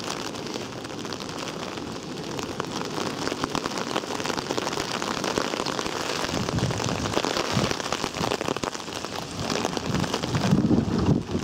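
Hail pattering down in a windswept hailstorm, a dense rapid ticking of stones. Gusts of wind buffet the microphone now and then, strongest near the end.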